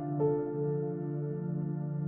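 Soft ambient background music: a sustained keyboard-like note begins about a quarter second in and is held over a low drone.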